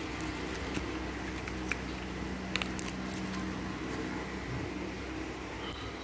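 Blue glitter slime being squeezed and pressed between fingers close to the microphone: soft squishing with a few small, sharp clicks and pops scattered through it, over a steady low hum.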